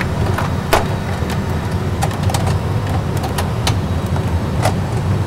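Steady low rumble of an Airbus A320 full-flight simulator's engine and rolling sound, with the jet taxiing at idle thrust as it lines up on the runway. Scattered sharp clicks come through it at irregular intervals.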